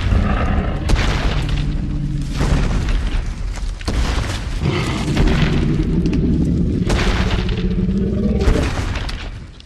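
Designed giant tyrannosaur roar, layered from film and game monster sounds over a deep rumbling boom. It comes as two long, low, drawn-out calls and fades out near the end.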